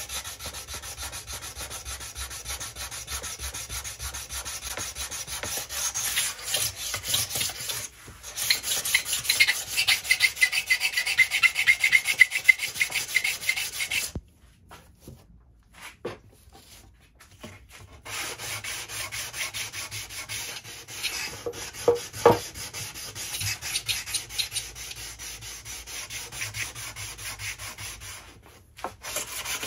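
Hand sanding the face of a walnut kumiko panel with a sanding block: quick, even back-and-forth rubbing strokes. The strokes stop for a few seconds about halfway through, and there is a sharp tap a little later.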